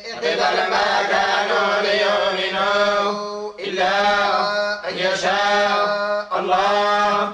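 Men's voices chanting Quran recitation in unison in the western Algerian chergui psalmody mode: long held melodic phrases with short breath breaks about three and a half, five and six seconds in.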